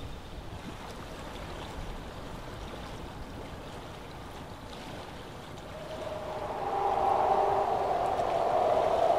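Steady rushing outdoor ambience of wind and river water; about six seconds in, a sustained soundtrack chord, a soft held pad, swells up and holds.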